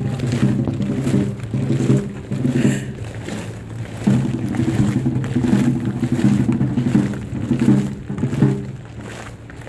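Band music from the procession: low held notes played in slow phrases, dropping away briefly near the end.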